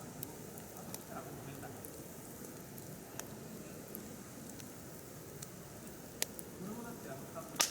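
Firewood burning in a mesh fire pit, crackling with scattered sharp pops at irregular intervals over a low steady hiss; the loudest pop comes near the end.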